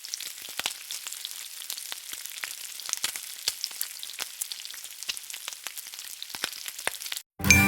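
Food sizzling in hot oil, a steady crackle of many small pops. It cuts off about seven seconds in, and music with glockenspiel-like mallet notes starts just before the end.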